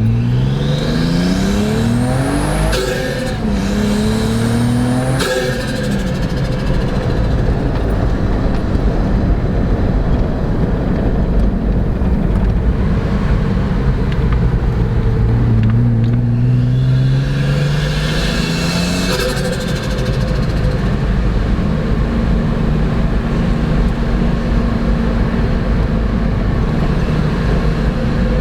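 Turbocharged Nissan RB inline-six in a GU Patrol, breathing through a new stainless snorkel, accelerating hard through two gears in the first few seconds with a high turbo whistle rising alongside the engine note. It then runs steadily, pulls again about halfway through, and settles back to a steady drone.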